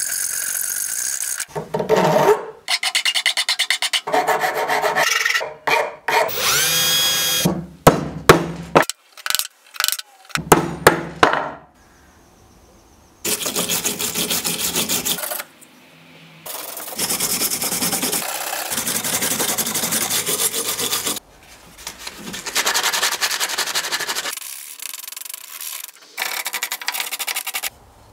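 Hand hacksaw cutting a thin aluminium edge strip clamped in a vise, in quick rough strokes with a brief squeal of the blade. Then a hand file scrapes along the aluminium edge of a wooden coaster in long runs of strokes.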